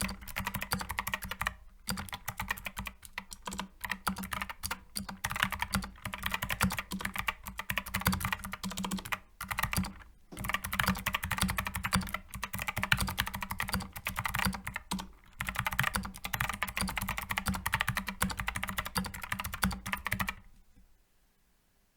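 Fast, continuous typing on a Skyloong Geek SK64S mechanical keyboard with hot-swap optical switches, a dense run of key clicks with a few brief pauses. The typing stops suddenly about 20 seconds in.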